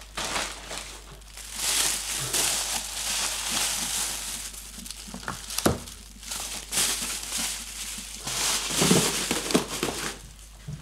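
Plastic bubble wrap and thin plastic wrapping crinkling and rustling in repeated bursts as a small package is unwrapped by hand, with one short knock a little past halfway.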